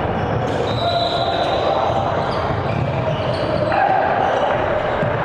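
Basketball game sounds in a gym: the ball bouncing on the hardwood court, sneakers squeaking, and players' voices, all echoing in the hall.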